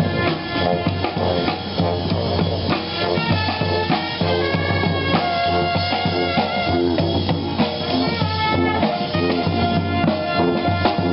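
Brass street band playing: horns holding and changing notes over bass drum and snare keeping a steady beat.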